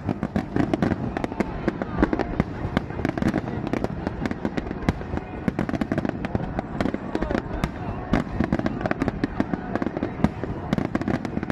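Fireworks going off in rapid succession, a dense crackle of many sharp bangs and pops with no pause, with people's voices underneath.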